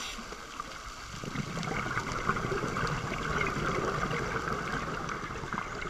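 Muffled underwater sound through a camera housing: a scuba diver's exhaled bubbles gurgling up for about four seconds, starting about a second in.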